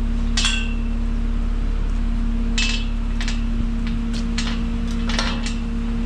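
Skid loader engine running at a steady pitch, with several sharp metal clanks from the loader bucket and frame.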